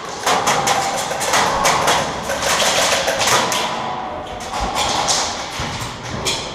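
Airsoft gunfire in an indoor skirmish: a string of irregular sharp clicks and snaps from shots and BBs striking walls and surfaces, over a steady noisy haze.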